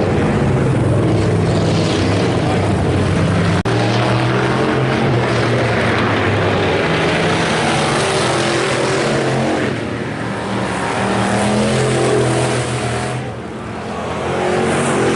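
Several IMCA Hobby Stock race cars' engines running together, revving and shifting in pitch as the cars go by. There are quieter moments about ten seconds in and again near the end.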